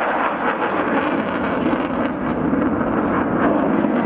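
F-15 fighter's twin jet engines on afterburner: a loud, steady rumble with a rapid crackle on top.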